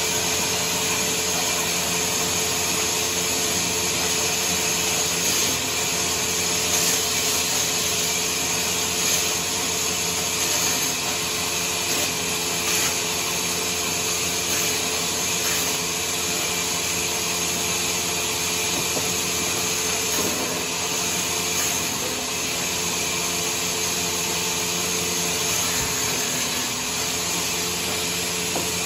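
Sawmill saw running steadily while cutting wood: a constant loud hiss over a machine hum.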